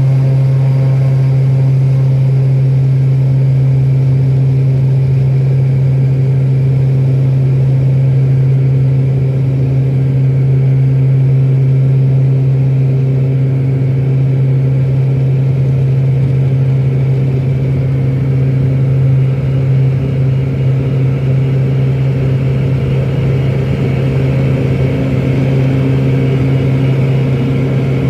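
Turboprop airliner's engines and propellers at takeoff power, heard inside the cabin: a loud, steady propeller drone with a strong low hum through the takeoff roll and climb-out, wavering slightly around the middle.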